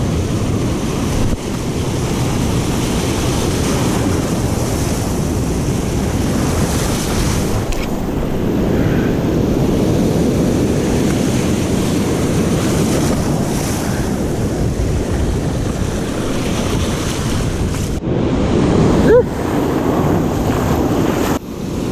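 Sea surf washing and breaking against rocks, with wind buffeting the microphone: a steady rushing noise.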